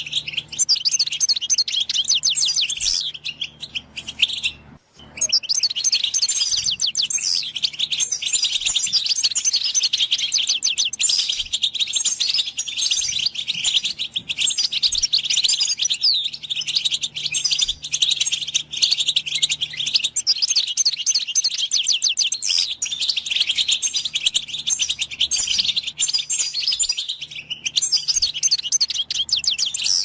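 European goldfinch singing a long, rapid, tinkling twitter almost without a break, pausing briefly about five seconds in.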